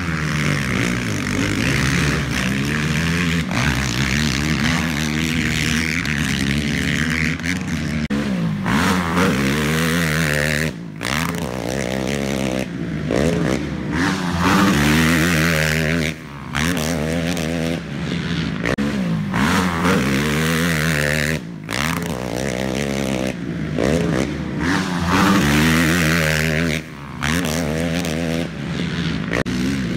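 450-class race ATV engine revving hard, its pitch climbing and dropping again and again as the rider accelerates and shifts. The sound dips sharply for a moment four times.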